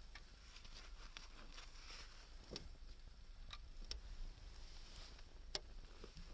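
Faint, scattered clicks and light taps, a handful of them several seconds apart, over a low steady hiss.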